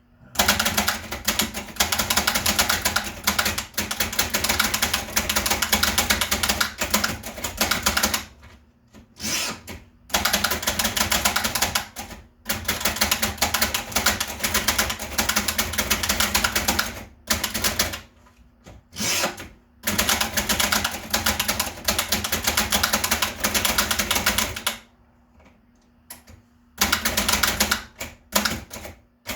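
1920s Bing No.2 portable typewriter being typed on: runs of rapid keystroke clacks, broken by several short pauses.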